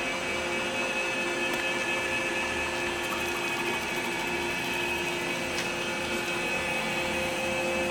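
iRobot Roomba i7+ Clean Base auto-empty station running steadily, its vacuum motor sucking the debris out of the robot's bin, with a constant whining hum.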